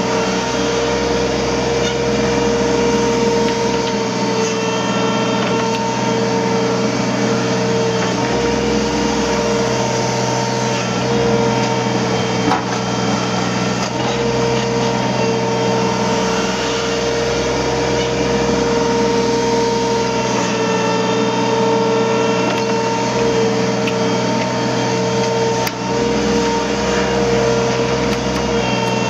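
Hydraulic excavator running steadily under work, its engine noise carrying a steady high whine that holds throughout.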